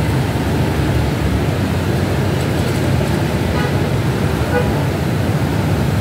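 Steady rumble of road traffic, with faint voices in the background about midway.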